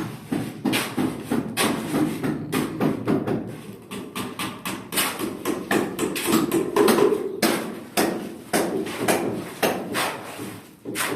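Hammering during fence repair work: quick, irregular knocks, a few each second.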